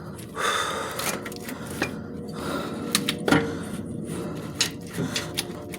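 Hand work on metal parts in a truck's engine bay: a stretch of scraping, then sharp clicks and knocks about two, three and a half and five seconds in, as a part is pulled and worked loose.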